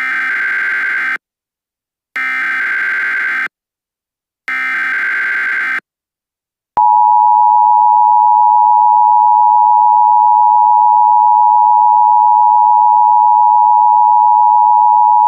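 Emergency Alert System header: three short, buzzy digital data bursts of SAME code, each about a second long with a second's gap between them. About halfway through, the steady two-tone EAS attention signal comes in.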